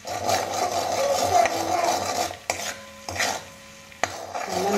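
A wooden spatula stirring and scraping melted butter and oil as they sizzle in a pan, with two sharp knocks of the spatula on the pan, about two and a half and four seconds in.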